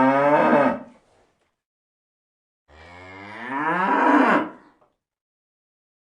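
Cattle mooing: one moo ends about a second in, and after a silent gap a second long moo rises in pitch and grows louder, then cuts off sharply.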